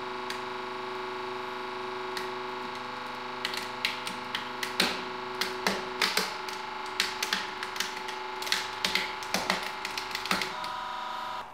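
Hollow 3D-printed PLA plastic egg cracking and splintering as a hydraulic press crushes it. A rapid, irregular string of sharp cracks starts about three seconds in and goes on until near the end, over the steady hum of the press running. The hum stops at the very end.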